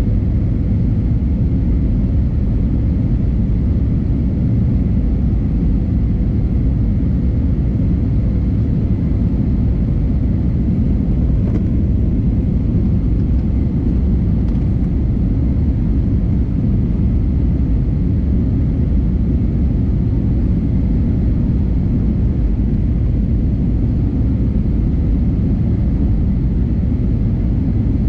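Steady cabin noise inside an Airbus A320neo in flight: the constant rumble of its Pratt & Whitney geared turbofans and the airflow, with a faint steady whine above it.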